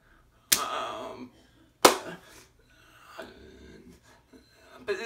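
A man's wordless breathy vocal sounds and exclamations, with two sharp smacks, one about half a second in and a louder one about two seconds in.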